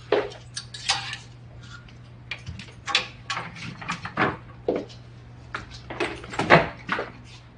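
Interior door being handled and opened: irregular clicks and knocks from the handle and latch, mixed with scuffs of footsteps, over a faint low hum.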